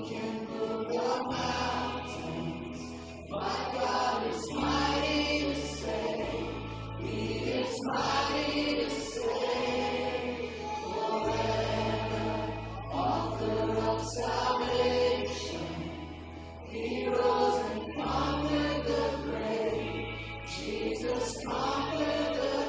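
A congregation and worship band singing a slow worship song, with voices holding long notes over a bass line that changes note every second or two.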